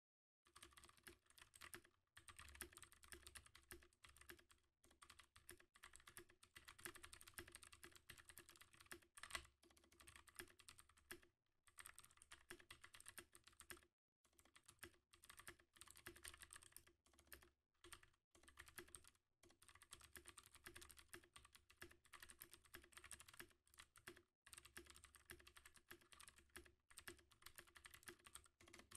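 Fast typing on a 60% mechanical keyboard with clicky Outemu Blue switches in a red aluminum case with an aluminum plate: a rapid, continuous stream of key clicks broken by a few brief pauses.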